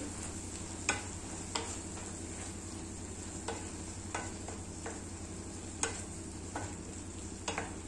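Wooden spatula stirring chopped vegetables in a kadai over a gas flame, with a faint steady sizzle and a few light clicks of the spatula against the pan. The vegetables are softening as they cook down.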